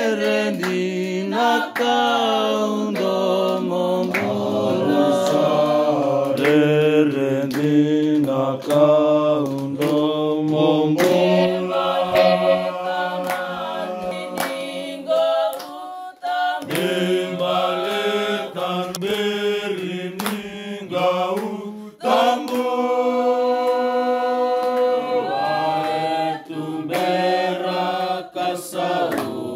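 A mixed group of voices singing unaccompanied in harmony, holding long chords that change every second or two, with a few short clicks.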